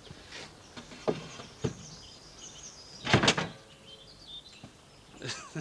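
A flat panel knocked and slid into the wooden back of a large bellows view camera: a few light wooden knocks, then a loud scraping slide a little after three seconds in and a shorter one near the end. Birds chirp in the background.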